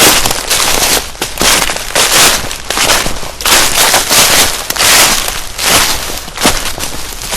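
Footsteps crunching through dry fallen leaves and twigs on a forest floor, one crackling crunch after another at a steady walking pace.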